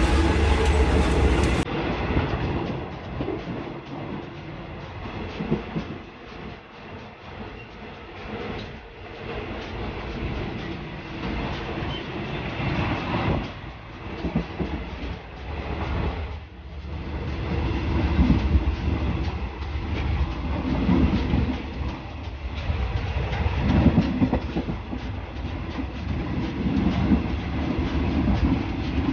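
Train running along the track: a continuous rolling rumble that swells and eases in loudness.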